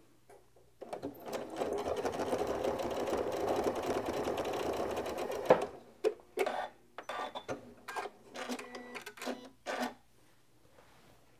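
Janome MC9450 sewing machine stitching steadily at speed through quilted blocks for about five seconds, then stopping. A few light clicks and taps follow.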